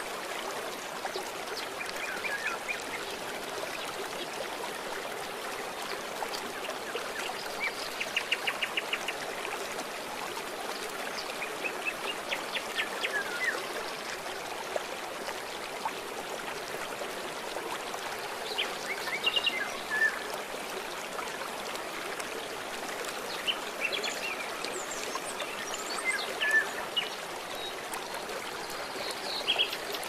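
Shallow, rocky mountain river flowing steadily over stones, a constant rush of water. Birds call now and then over it, with a quick trill about eight seconds in.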